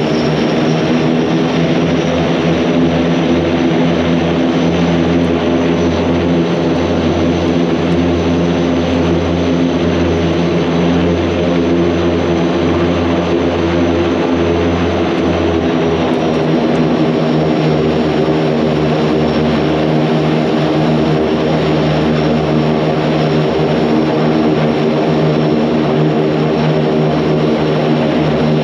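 Antonov An-26's twin Ivchenko AI-24 turboprop engines running, heard from inside the cockpit: a loud, steady propeller hum made of several even low tones, with a high whine over it. The whine drops slightly in pitch about sixteen seconds in.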